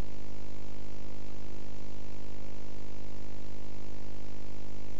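Steady electrical mains hum with a buzzy edge, over a constant hiss; nothing else sounds.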